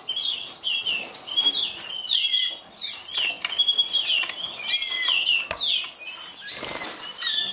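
Canaries chirping with short, quick calls, several a second, and wings fluttering.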